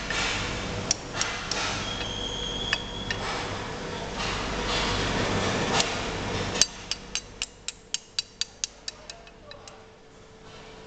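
A small hammer tapping on the metal parts of a hand pallet truck's hydraulic pump unit: one sharper blow about two-thirds of the way in, then a quick run of about a dozen light, evenly spaced taps, about four or five a second, growing fainter.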